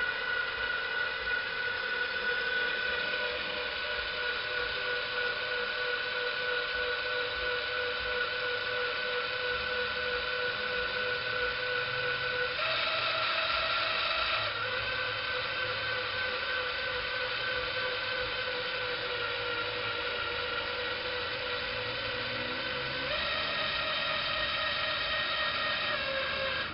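Power drill motor spinning the CNC gantry's Z-axis lead screw: a steady whine that rises in pitch for about two seconds around the middle and rises slightly again for the last few seconds.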